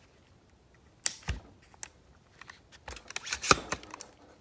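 Handling of a 9mm AR pistol: scattered small clicks and knocks of its parts as the gun is turned over in the hands, sparse at first and then coming in a quick cluster in the second half.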